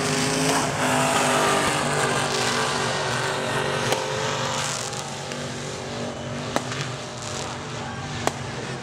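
Formula Offroad buggy's engine running hard as it hydroplanes across a pond, with a hiss of water spray from its paddle tyres. The sound slowly fades as the buggy moves away, and a few sharp firework cracks come in the second half.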